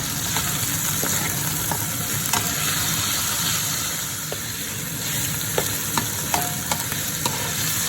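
Small pieces of chicken sizzling steadily in olive oil in a frying pan on medium heat, with scattered light clicks of a utensil stirring against the pan.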